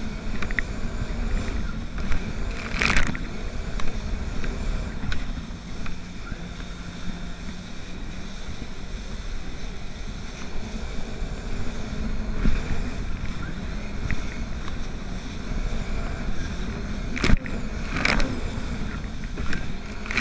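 Jet ski running at speed over choppy water: a steady engine drone mixed with rushing water, with a few sharp splashes, two of them close together near the end.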